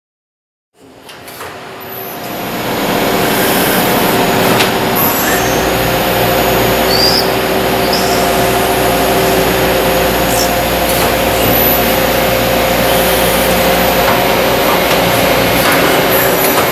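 Miyano ANX-42SYY CNC turning centre machining a brass bar: the spindle and drilling make a steady whine of several tones over a hiss, with a few clicks and short chirps. The sound fades in within the first two seconds.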